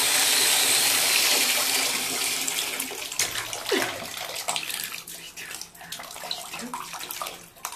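Bathtub tap running into shallow water with a steady rush that fades away over the first few seconds. After that a puppy splashes in the shallow water with its paws and muzzle, in irregular splashes.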